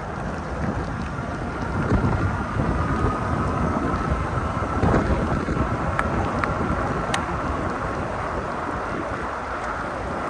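Wind noise on the microphone while riding a Cyrusher XF800 fat-tyre e-bike, with a faint steady whine underneath. A couple of sharp clicks come about six and seven seconds in.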